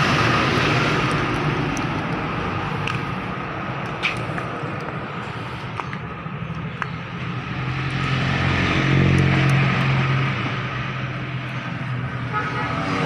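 Air and water hissing out of an air compressor tank's opened drain valve: a steady spray, the sign of a tank holding a lot of water. A low hum joins it in the second half.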